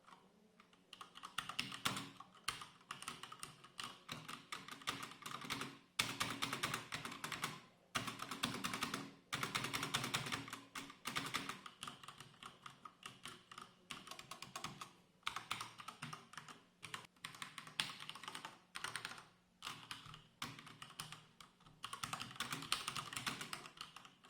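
Typing on an MSI Vigor GK80 mechanical keyboard with Cherry MX RGB Red switches: fast, dense key clatter in runs of a few seconds, broken by short pauses.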